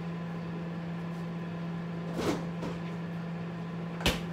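Microwave oven running with a steady low hum while it heats a cup of water. Two short knocks come about two seconds apart, the second one sharper.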